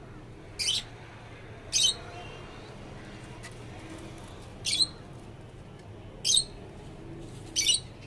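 A bird gives five short, harsh squawks at uneven intervals, over steady yard background noise.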